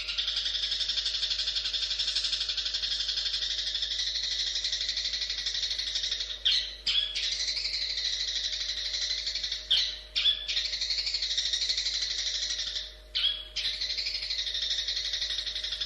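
Long-tailed shrike (cendet) singing a fast, unbroken chattering warble. It pauses briefly three times, about six and a half, ten and thirteen seconds in, with a sharp call at each break.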